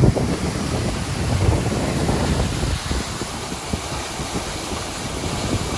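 Waterfall rushing steadily, with wind buffeting the microphone in low gusts during the first couple of seconds.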